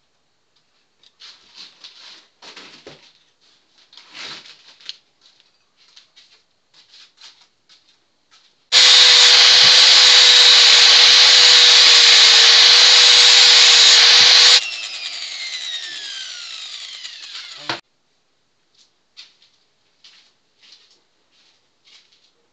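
Angle grinder grinding a steel part of a jack's crank handle for about six seconds, then switched off and winding down with a falling whine for about three seconds before it stops. Light clicks and rubbing from the part being handled come before and after.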